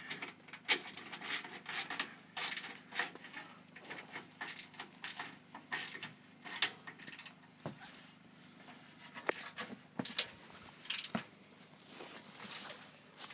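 Irregular metallic clicks, taps and scrapes of a hand tool and mounting clamp hardware against an aluminium solar panel frame and its rail as the panel is fitted and tightened down.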